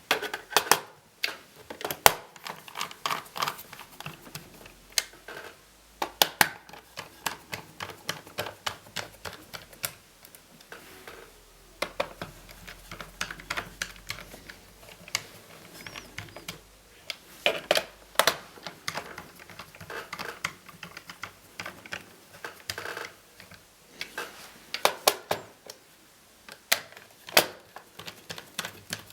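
Irregular small clicks and taps of hard plastic and metal laptop parts being handled and worked with tools, coming in clusters with short pauses between.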